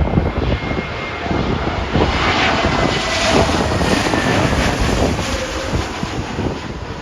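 Jet airliner passing low overhead on final approach to land, its engine noise swelling to a peak a few seconds in and then easing, with a faint high whine. Strong wind buffets the microphone with low rumbling gusts.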